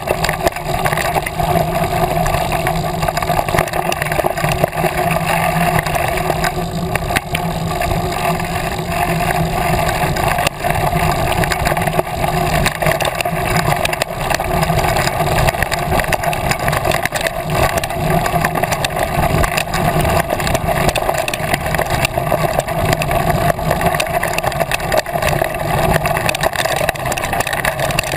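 Continuous rumble and rattle of a mountain bike with little suspension rolling down a gravel fire road, picked up by a camera mounted on its handlebars, with many small knocks from the rough surface.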